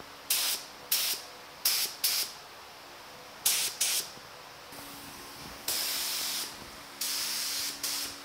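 Small automotive paint spray gun spraying blue base coat in short trigger pulls, laying super light coats into narrow vents. It makes six quick bursts of air hiss over about four seconds, then two longer passes of nearly a second each.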